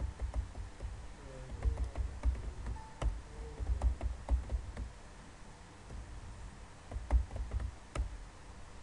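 Computer keyboard typing: irregular runs of quick keystrokes, a quieter pause a little past the middle, then a last short flurry of keys near the end.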